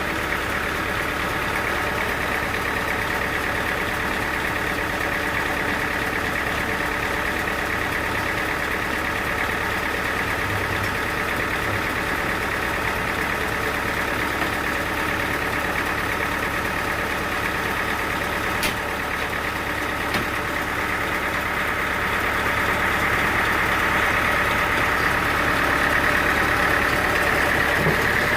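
Sawmill machinery running steadily, an engine-driven drone with a single sharp click about two-thirds of the way through, growing a little louder near the end.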